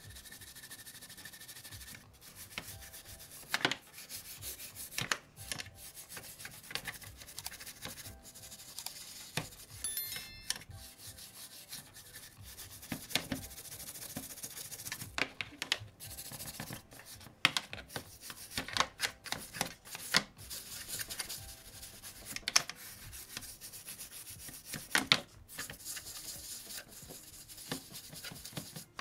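Brush scrubbing the body of a model car in a tray: irregular scratchy rubbing strokes with frequent small clicks and knocks, as old paint is scrubbed off the shell.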